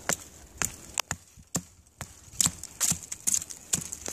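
Stone hand axe chopping at a small branch where it meets a slender tree trunk: about eight irregular blows of stone on bark and wood, with a brief pause near the middle.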